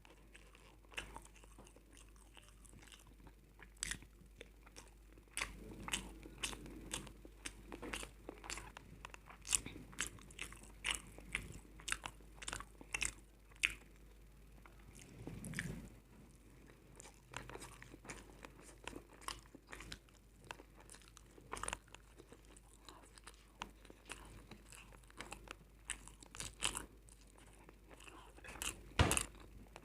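Close-up eating: a person biting and chewing crunchy potato chips, a quick irregular run of crisp crunches with a few louder bites, the loudest near the end.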